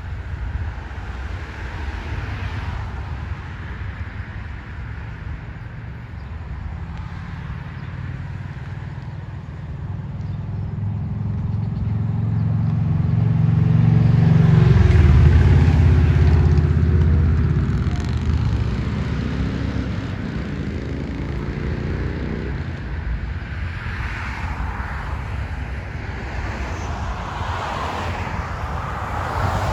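A motor vehicle passes close by. Its engine grows louder to a peak about halfway through, then fades away over steady low street noise.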